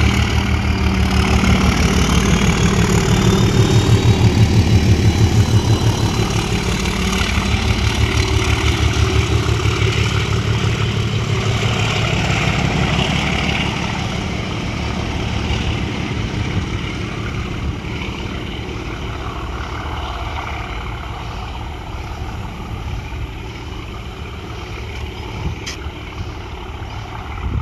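Diesel locomotive engine with a heavy, regular low throb as a train passes, loudest a few seconds in and then slowly fading as it draws away.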